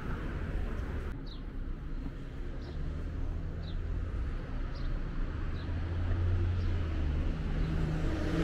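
Steady low rumble of street traffic, with a bird chirping over it in short falling notes about once a second.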